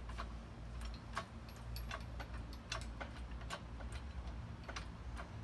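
Irregular light metallic clicks and clinks, a few a second, over a low steady rumble, as an engine is lifted out of the engine bay on a hydraulic shop crane.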